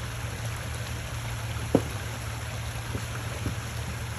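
Off-road vehicle's engine running low and steady as it crawls the trail, with a few short knocks, the loudest about two seconds in.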